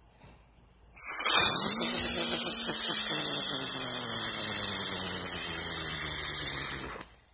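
Ground bloom firework going off: it starts suddenly about a second in with a loud, high hiss and a whine that slowly drops in pitch, then cuts off abruptly near the end.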